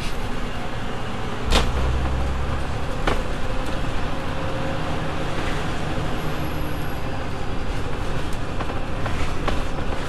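Cabin noise of a double-decker bus on the move: a steady low engine and road rumble. About a second and a half in there is a sharp knock as the low drone swells for a second or so, and a second knock follows about three seconds in.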